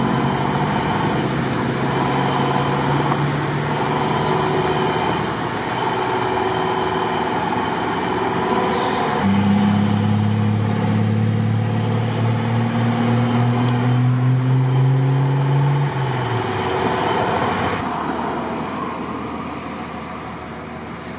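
Vehicle engines idling with a steady low hum. In the middle a louder engine drone rises slowly in pitch for several seconds, then drops off.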